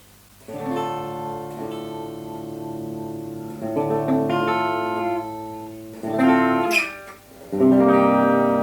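Replica Gibson Les Paul electric guitar on its bridge humbucker, played through a Vox amp: four chords strummed and left to ring, the last one near the end the loudest.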